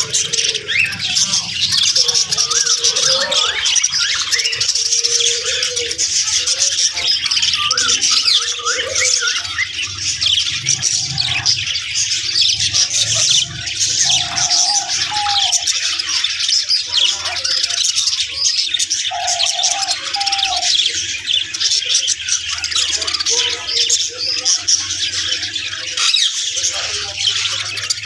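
Budgerigars chirping and chattering without a break: a dense mass of high twittering calls, with a few lower warbled notes now and then.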